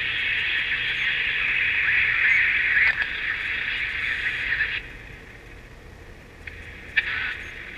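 A small transistor radio's speaker gives off a steady harsh hiss-like noise, the oscillation that the set's failing electrolytic capacitors cause. A little under five seconds in it drops away sharply, leaving a faint hum, as a test capacitor is bridged across one of the caps. There are faint clicks of the probe touching down.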